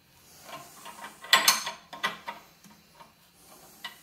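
Wrench turning the forcing screw of a bearing puller that is drawing the top bearing off a drill press spindle: a few irregular metal clicks and clanks, the loudest about a second and a half in.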